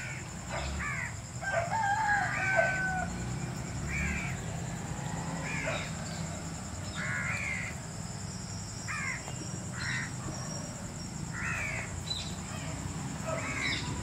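Crows cawing outdoors, short harsh calls repeated every second or two.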